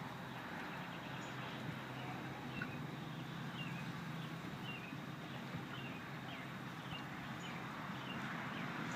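Steady low motor-like hum under a run of faint, short bird chirps repeated about every half second, with no loud honking.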